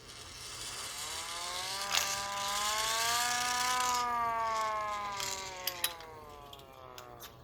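Handheld air raid siren wailing as its rotor spins up: the pitch rises for about four seconds, then falls as it winds down. A few sharp clicks from the mechanism come about two seconds in and again near the end of the wail.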